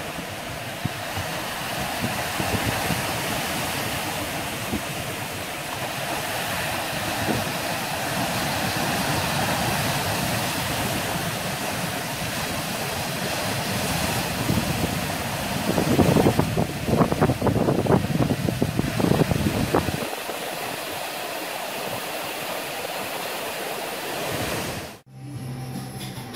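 Ocean surf breaking and washing over a rocky shore: a steady rushing wash, louder and rumbling for a few seconds about two-thirds of the way through, then cutting off suddenly near the end.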